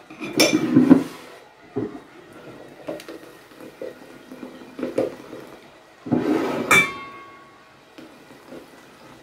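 A metal spoon knocking and scraping in a stainless-steel conical sieve as watermelon juice is poured through it, with a few light knocks and one louder clink about two-thirds of the way through that rings on briefly.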